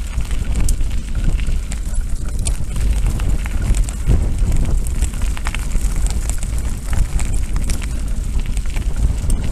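Wind rumbling on the microphone of a camera riding on a bicycle on a gravel track, with scattered clicks and rattles from the tyres on gravel and the bike jolting over the rough surface.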